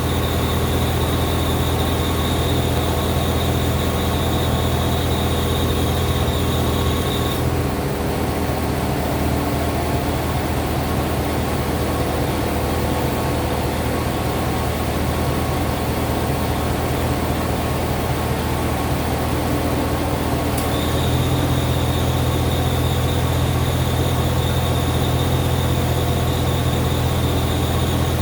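1995 Corvette engine running with a steady high-pitched squeal. The squeal stops when the air conditioning is switched off about eight seconds in and comes back when it is switched on again about twenty seconds in. The engine note shifts slightly at each switch. The owner wonders whether the AC compressor clutch is going out.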